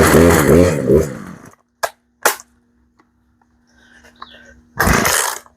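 Poulan P3314 two-stroke chainsaw engine firing on half choke and running unevenly, the pitch wavering, before it dies about a second and a half in. A couple of knocks follow, and near the end there is a quick rasping pull of the starter cord.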